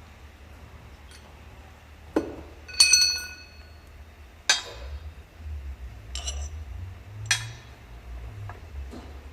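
Steel parts clinking and clanking during work on a wheel hub and its bearing at a press: about five separate knocks, one ringing on briefly like struck steel about three seconds in.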